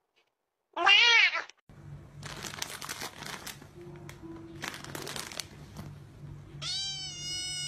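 Cats meowing: one short, loud meow with a bending pitch about a second in, and a longer, steadier meow near the end.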